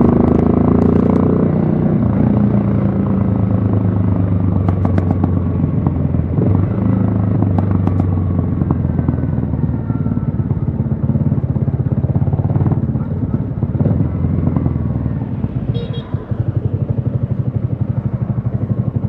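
Yamaha XSR155's single-cylinder engine, the revs falling off and then running at a steady low pace. About three-quarters of the way through it drops to an even, pulsing idle, with a short high beep at that moment.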